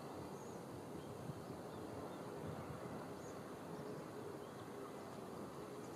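Faint outdoor ambience: a steady low hum of distant town noise, with a few brief faint high chirps of small birds.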